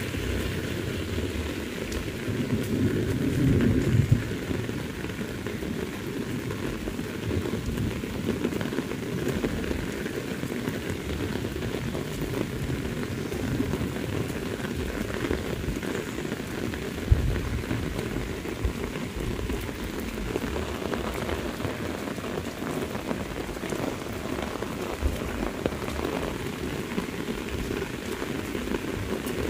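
Heavy rain falling steadily on a paved road and grass. There is a low rumble in the first few seconds and two short knocks, about 4 s and 17 s in.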